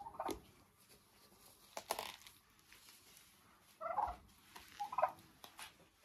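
Turkeys giving short calls, one at the start and two more about four and five seconds in, with a sharp knock or rustle about two seconds in.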